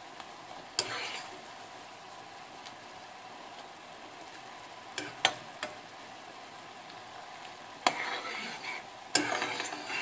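Metal spoon stirring cubes of candied orange peel in boiling sugar syrup in a saucepan: a steady bubbling sizzle, with sharp clicks of the spoon against the pan about a second in and several around five seconds, and scraping stirs near the end. The syrup is still thickening toward a honey-like consistency.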